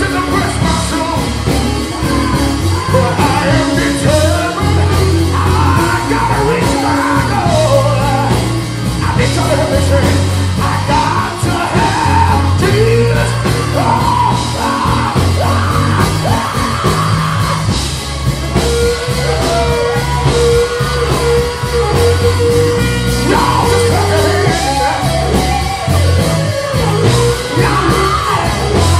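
Live gospel music: a male lead singer sings and belts into a handheld microphone over a band with a strong, stepping bass line. About two-thirds of the way through, one note is held for around five seconds.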